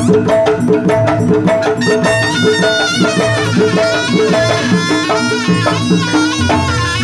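Live jaranan dance accompaniment: a reedy wind melody over drums and fast, evenly repeated pitched notes keeping a steady beat.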